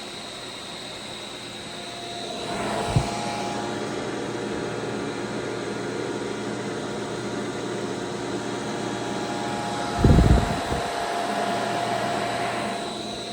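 ABB ACQ580 variable-frequency drive running under test: fan-like whirring with a steady high whine. The whirring swells about two seconds in and eases off near the end, with a short knock about three seconds in and a louder low bump around ten seconds.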